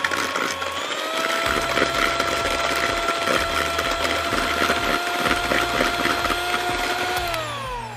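Philips electric hand mixer running, its twin beaters whisking eggs and sugar in a plastic bowl to a froth. The motor whine steps up in pitch about a second in, holds steady, then slides down and winds off near the end as the mixer is switched off.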